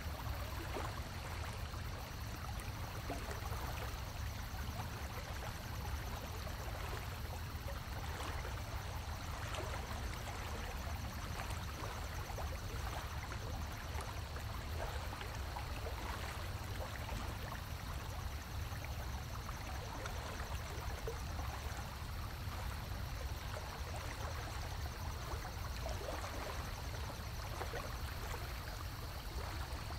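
Steady trickling, running water in a large aquarium tank, over a low hum and a faint high whine.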